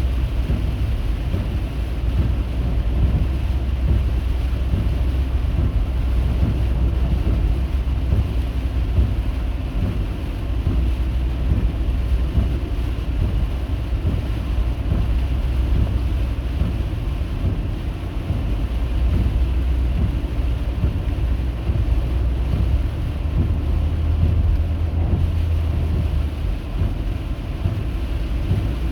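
Steady low rumble of a car on the move, heard from inside the cabin: engine and road noise with wind noise over it.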